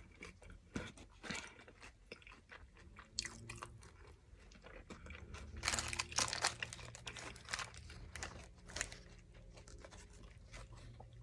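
Close-miked eating sounds of a person biting and chewing McDonald's breakfast food, McGriddle and hash browns: a run of short, irregular crunches and mouth clicks, busiest about six seconds in.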